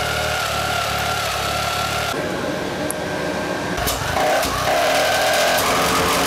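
Supercharged 50cc two-stroke engine being cranked over with a steady mechanical whine but not firing: it is not getting fuel. About two seconds in the low rumble drops away and the sound changes.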